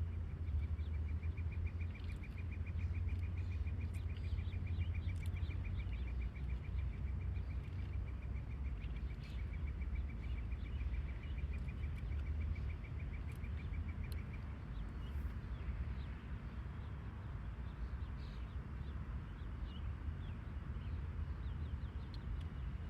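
Outdoor ambience: a steady low rumble, with a rapid, evenly pulsed high-pitched chirping trill that stops about fourteen seconds in, and scattered faint chirps.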